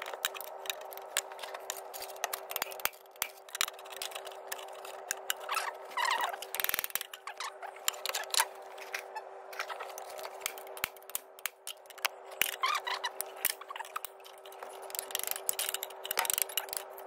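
Metal tools knocking, tapping and scraping on a badly seized water pump on a Citroen TU5JP4 1.6 petrol engine as it is pried and punched loose, in many irregular sharp knocks with scraping between them. A steady faint hum runs underneath.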